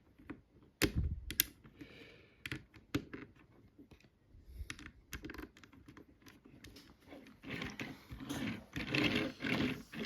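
Irregular small plastic clicks and taps as a Transformers action figure is handled and its removable light bars are snapped back into place. The handling sounds come closer together and busier near the end.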